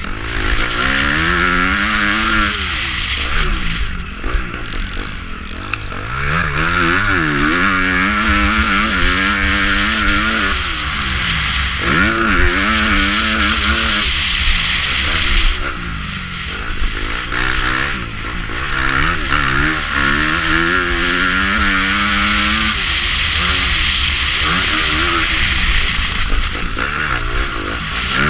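A 450cc four-stroke motocross bike engine, heard from the rider's helmet, revving up and backing off over and over as it is ridden hard around the track, with wind rush on the microphone.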